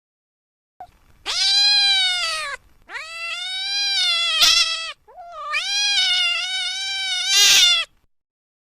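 Domestic cat meowing: three long, drawn-out meows in a row, each rising and then falling in pitch.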